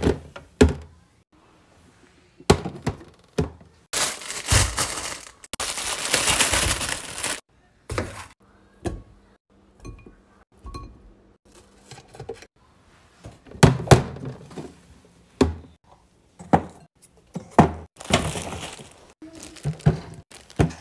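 Round glass food-storage bowls with plastic lids being set down and handled: a series of knocks and glassy clinks, with stretches of rustling in between.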